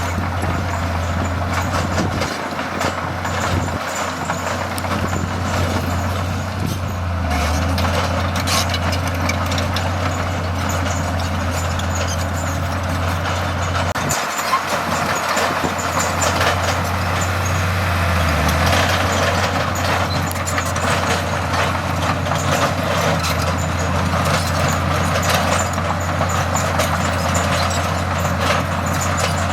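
Heavy diesel construction machinery running steadily: a constant low engine drone with mechanical clatter and noise over it.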